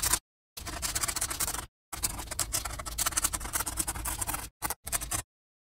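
Scratchy pen-on-paper writing sound in several strokes broken by short silent gaps, following the handwriting of words; it stops near the end.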